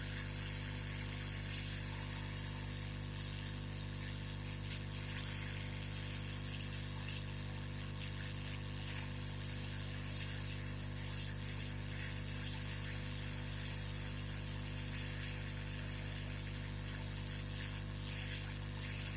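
Hot-air rework blower running steadily: an even airy hiss over a low electrical hum, with faint scattered ticks.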